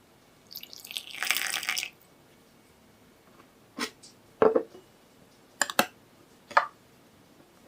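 Kitchen handling sounds: a brief noisy rush about half a second in, then several light, separate clicks and taps.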